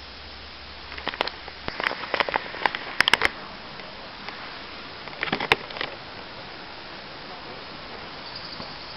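Dry fallen leaves crackling and rustling in irregular clusters over a steady hiss; the crackles stop about six seconds in.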